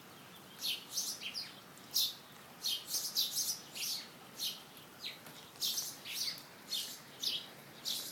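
A bird chirping: a steady run of short, high chirps, irregularly spaced at about one to two a second.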